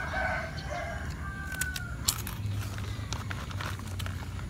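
A rooster crows once: one long call that falls away at its end, about two seconds in. Then come crisp, irregular crunches as a thin arrowroot cracker is bitten and chewed.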